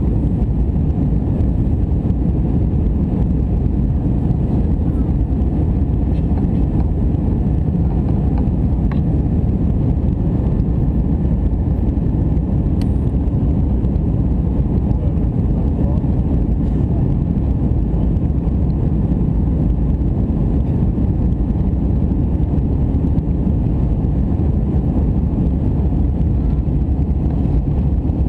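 Steady low rumble inside an Airbus A319 cabin in flight, from the jet engines and the airflow over the fuselage.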